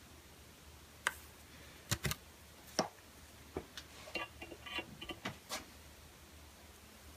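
Scattered sharp clicks and knocks of small metal hand tools handled at a steel bench vise: a thread tap and its tap handle being readied after oiling a drilled hole, with a short light metallic jingle between about four and five seconds in.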